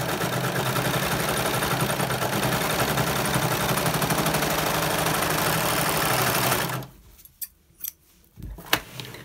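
Overlocker (serger) stitching at a steady fast speed, then stopping abruptly about seven seconds in. A few light clicks and fabric handling follow as the sewn piece is pulled free.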